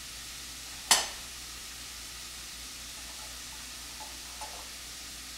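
A sharp loud pop about a second in as the lid of a jar of pasta sauce is twisted open, over the steady hiss of Italian sausage frying in a pan. A few faint soft sounds follow as the sauce is poured into the pot.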